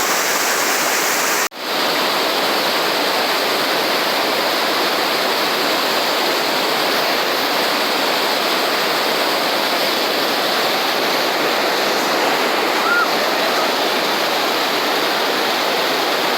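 Fast-flowing mountain water rushing steadily and loudly, cut off for an instant about a second and a half in.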